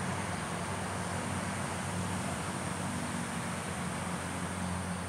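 Steady low hum of distant road traffic with engines running, and a thin, steady high-pitched insect buzz above it.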